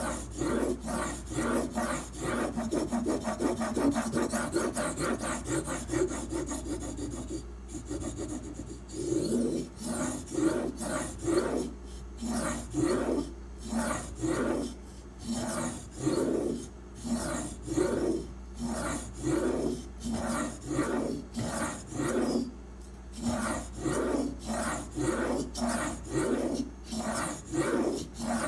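Steel knife blade, clamped in an aluminium sharpening guide, scraping back and forth on a sharpening stone. The strokes come quick and short for the first eight seconds or so, then settle into slower, even strokes about one and a half a second.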